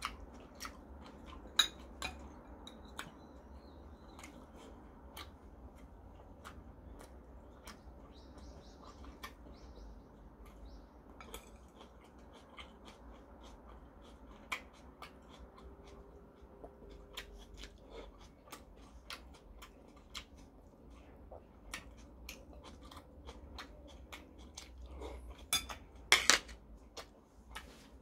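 Eating sounds: chewing and mouth noises with many light clicks of metal chopsticks against a glass bowl and dishes, and a louder clatter near the end.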